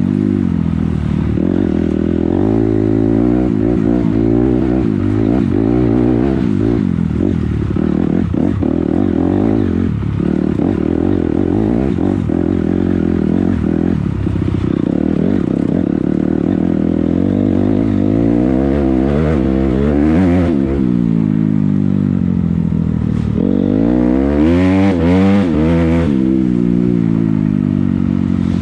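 A 250 dirt bike engine riding off-road, its pitch rising and falling with the throttle. There are hard revs about two-thirds of the way in and again near the end, with knocks and clatter from the trail in the first half.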